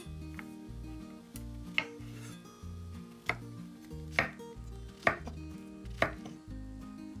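Knife strokes on a cutting board, five or six sharp chops about a second apart, over background music.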